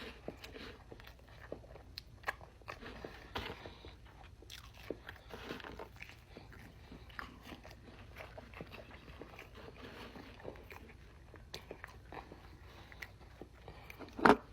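Close-up chewing and crunchy bites of food, irregular wet clicks and crackles at the mouth. A single loud knock sounds near the end.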